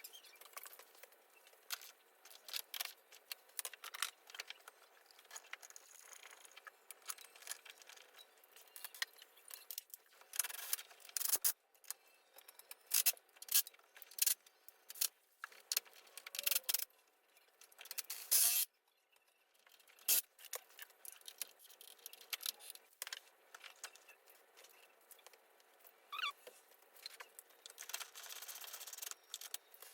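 Hand work on a car engine: irregular clicks, clinks and short scrapes of metal parts and hand tools being handled and fitted, with a cluster of louder knocks through the middle.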